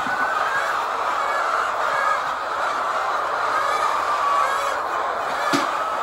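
A large flock of hens clucking and calling together in a steady chorus, with one sharp click about five and a half seconds in.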